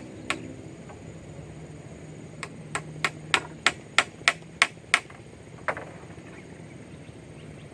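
Sharp knocks of a tool striking wood: one shortly after the start, then a run of about nine strikes at roughly three a second, and a last one near the end.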